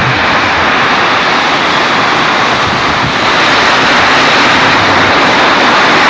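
Drag racing car's engine running loud and steady while the car sits staged at the starting line.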